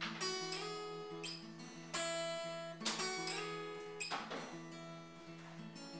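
Acoustic guitar playing an instrumental passage, with strums about once a second and plucked notes ringing on between them.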